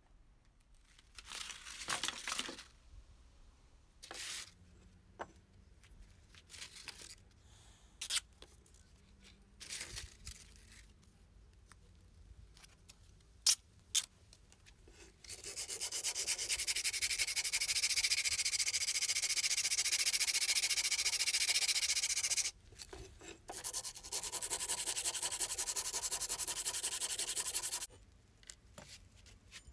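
Abrasive sanding against a part: a few short scrapes and knocks, then two long, even stretches of sanding noise, the first about seven seconds and the second about four.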